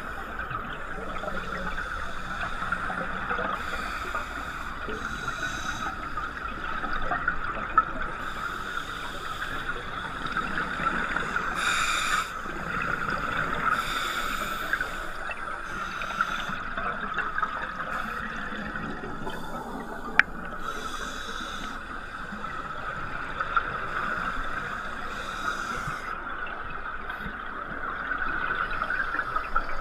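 Underwater sound heard through a waterproof camera housing: a steady muffled hiss, with a rush of scuba regulator exhaust bubbles every few seconds. There is a sharp click about twenty seconds in.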